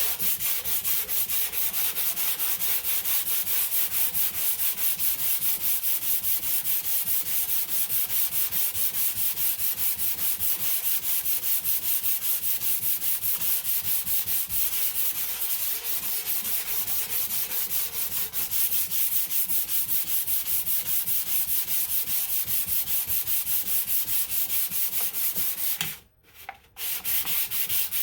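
Hand sanding of body filler on a car panel with 220-grit closed-coat sandpaper: quick, even back-and-forth strokes, about three to four a second, with a short break near the end.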